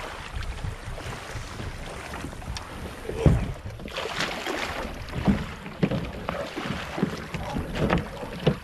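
Footsteps splashing in shallow water and crunching on a bank of loose oyster shells, with a heavy thump about three seconds in, over wind on the microphone.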